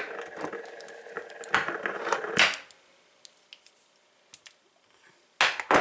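A metal padlock is set spinning on a hard surface. It rattles and rings for about two and a half seconds, with a few louder clacks, before it stops. A few faint ticks follow, then another sharp clatter near the end as a padlock is handled or spun again.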